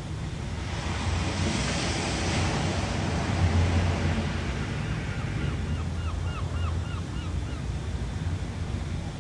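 Ocean surf: a wave swells and washes in about a second or two in, over a steady low rumble of water. Midway a bird calls in a quick series of about eight short notes.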